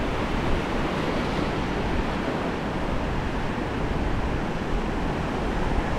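Surf breaking and washing up a sandy beach, a steady rush of water, with wind on the microphone.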